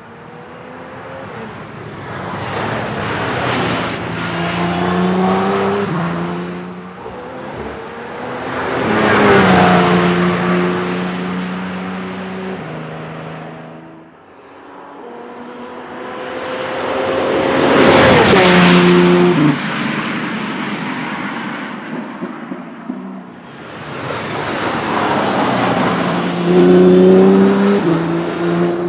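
2014 Audi R18 e-tron quattro LMP1 prototype's V6 turbodiesel racing past several times, each pass swelling up and fading away. The engine note steps down in pitch at each upshift, and on the loudest pass, about two-thirds of the way through, it drops as the car goes by.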